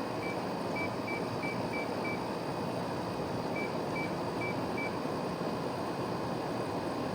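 2009 GE 5,200 BTU window air conditioner (model AEW05LMS2) running steadily with a fan whoosh. Over it come short high beeps about three a second, six in a row early on and four more after a pause in the middle, the unit beeping at each press as its set temperature is stepped.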